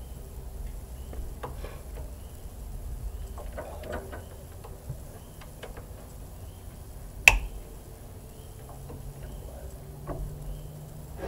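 Socket wrench on an extension working bolts on a Kubota diesel tractor engine: scattered light metal clicks and knocks, with one sharp metallic clack about seven seconds in.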